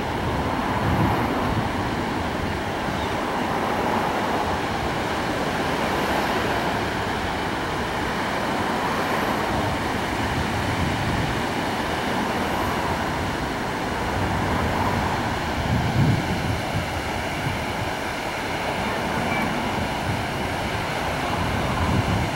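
Steady rush of ocean surf from breaking waves, with wind buffeting the microphone a few times.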